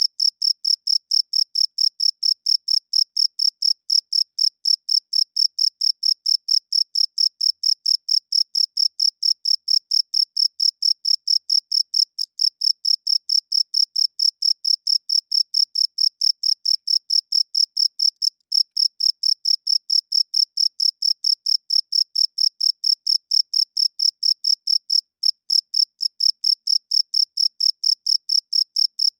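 Cricket chirping: a steady, fast train of short, high-pitched chirps, several a second, with a few brief breaks.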